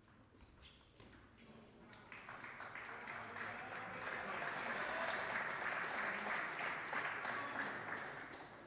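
Spectators applauding a point in a table tennis match, starting about two seconds in, building, and dying away near the end. Before it, a few faint taps of the ball in play.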